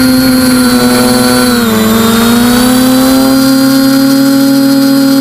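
TBS Discovery quadcopter's brushless motors and propellers whining steadily, close to the onboard camera. About a second and a half in, the pitch dips and then glides back up as the motor speed drops and recovers.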